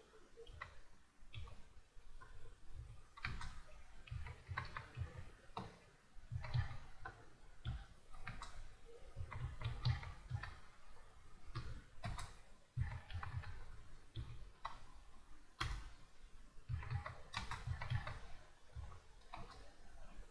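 Typing on a computer keyboard: irregular runs of key clicks and soft thuds, coming in bursts with short pauses between them.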